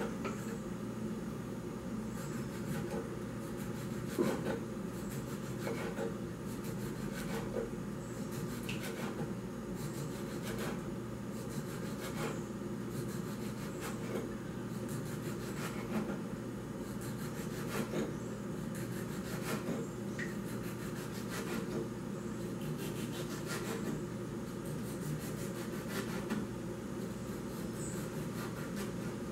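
Small knife slicing a tomato on a wooden cutting board, the blade knocking on the board every second or two, over a steady background hum.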